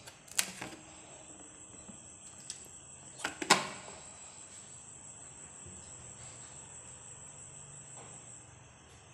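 A steady high-pitched insect trill runs on underneath, with a few sharp clicks: two just after the start and two, the louder ones, about three and a half seconds in.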